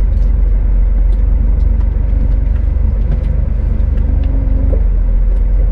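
Scania S500 truck's diesel engine running at low speed as the truck creeps and turns, heard from the cab as a steady, heavy low rumble.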